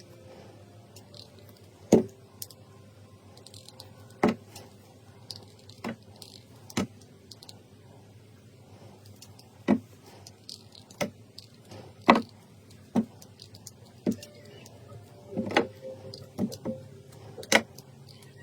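Slime being handled and poked, giving sharp, irregular clicks and pops every second or two, with a quick cluster of them near the end.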